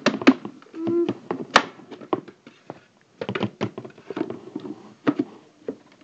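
Irregular taps, clicks and knocks as a Dyson DC24's dust bin is handled and knocked against a plastic cup to empty the dirt out, with one sharper knock about a second and a half in.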